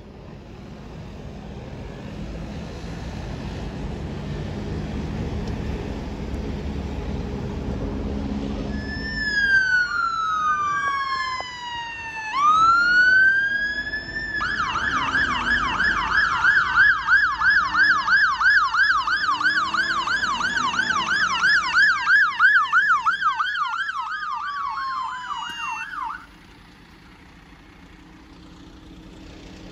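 Fire engine siren approaching through traffic. It sounds long falling wails, then switches to a rapid yelp for about ten seconds before cutting off abruptly. Rumbling traffic builds up before the siren starts.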